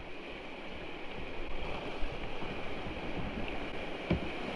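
Creek water rushing steadily around a kayak running a small rapid, with a low thump near the end.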